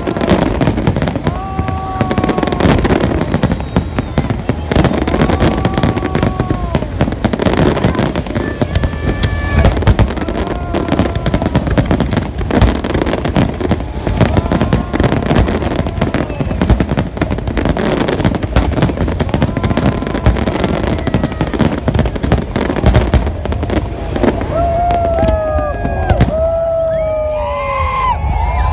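A large aerial fireworks display: a dense, continuous barrage of shell bursts, with bangs and crackle overlapping throughout.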